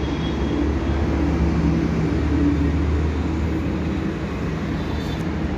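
A vehicle engine running steadily, a low hum with a few steady tones over background noise.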